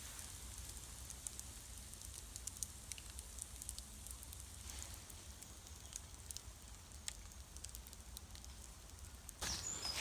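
Small wood campfire crackling, with irregular faint pops and snaps. A louder noise comes in near the end.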